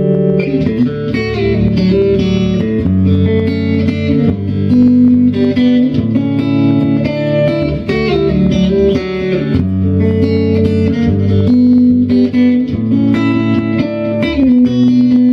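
Electric guitar instrumental: a plucked guitar melody over sustained bass notes.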